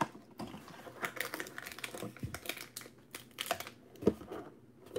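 A cardboard trading-card box being torn open and the wrapped card pack inside lifted out: paper and cardboard crinkling and rustling in quick irregular bursts, with one sharp knock about four seconds in.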